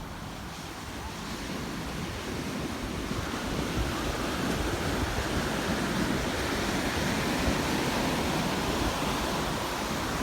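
Ocean surf breaking and washing up a sandy beach, with wind gusting over the microphone. The wash swells about three seconds in and eases a little near the end.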